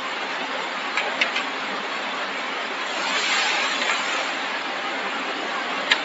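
Steady hissing background noise, with a few light clicks of plastic-jacketed cables being set down on a wooden table: three about a second in and one more near the end.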